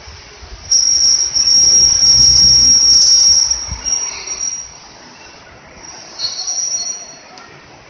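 Toyohashi Railway 780-series tram's steel wheels squealing against the rails as it pulls away: a loud, high, steady squeal from about a second in, with a low rumble under it, dying away at about three and a half seconds, then a shorter, fainter squeal near the end.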